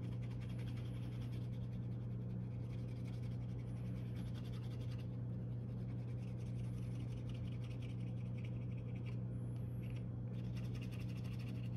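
Hand burnisher rubbed rapidly back and forth along the edge of a vegetable-tanned leather cutout: a fast, even scratchy rubbing as the edge is burnished smooth. A steady low hum runs underneath.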